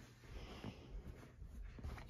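Faint handling noise as hands move about the shotgun's steel receiver and lay a cloth over it, with a few light knocks.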